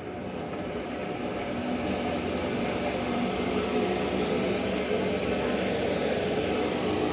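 Electric centrifugal oil spinner (deoiling machine for fried chips) running with a steady mechanical hum, getting louder over the first three seconds as its basket comes up to speed, then holding steady.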